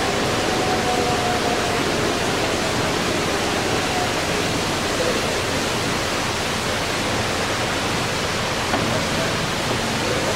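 LeBlond ND engine lathe running, its motor and headstock gearing making a steady whirring hiss, with a faint whine in the first few seconds that fades as the spindle and three-jaw chuck slow down.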